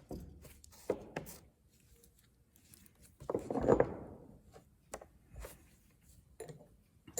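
Scattered light clicks and knocks of hand work on deck fittings, with one louder scraping, rustling noise about three and a half seconds in.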